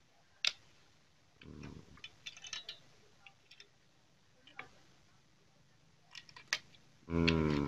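A scattered handful of light metal clicks and taps from small parts and a thin metal rod being worked against the gearshift parts in a motorcycle's aluminium crankcase. A man's voice starts near the end.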